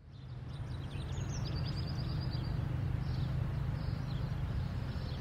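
Outdoor city ambience fading in: a steady low background rumble, with birds chirping and trilling above it, most busily in the first couple of seconds.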